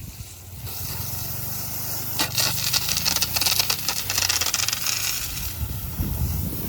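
Water being put onto freshly sawn boards: a rough, scrubbing hiss from about two to five seconds in, over a low steady hum.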